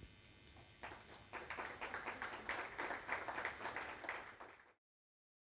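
Audience applauding. It starts about a second in, builds, and cuts off abruptly near the end.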